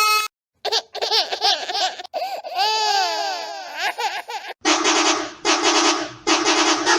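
Edited meme sound-effect montage: a cartoonish, laugh-like warbling sound with quickly bouncing pitch, then four short harsh blasts in a row, like distorted horn honks.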